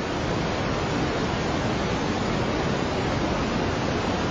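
Steady, even rushing noise of heavy rain and floodwater.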